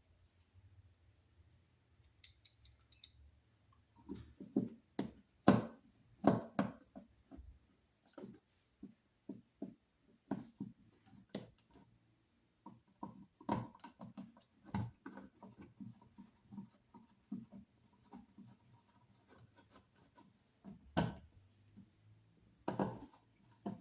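Irregular scraping and clicking of a wall receptacle being pushed into its electrical box and its Phillips mounting screws driven in with a hand screwdriver until tight.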